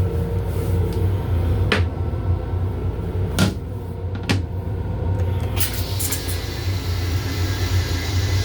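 Steady low hum inside an M7 electric railcar, broken by a few sharp latch-like clicks. About six seconds in, a hiss comes in and holds.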